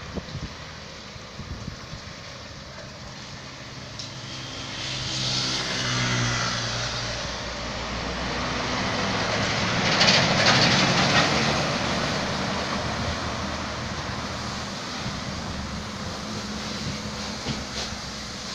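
Heavy diesel truck passing close by: its engine note rises a few seconds in, and it is loudest about ten seconds in with a rush of tyre and wind noise as it goes past, then its engine carries on more steadily.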